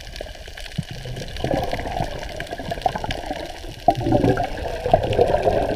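Sea water sloshing and gurgling right against a camera riding at the water's surface, with small crackling splashes, louder from about a second and a half in.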